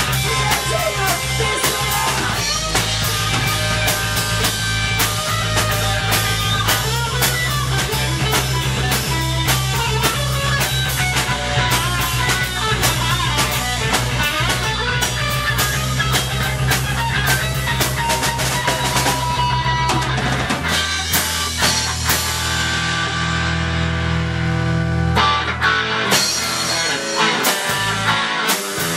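Instrumental passage of rock music with a steady drum beat. The drums stop for a few seconds about two-thirds of the way through, then the full band comes back in near the end.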